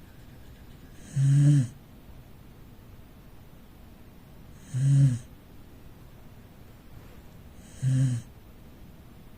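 A sleeping corgi snoring: three short snores about three seconds apart, each lasting about half a second.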